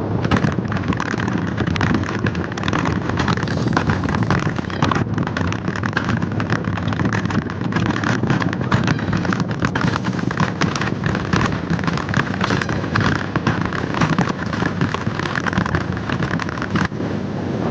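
Ride noise on an alpine mountain coaster: wind buffeting the camera microphone, mixed with the rattle of the sled running on its steel rails. It is a loud, dense crackling that holds steady and eases off near the end.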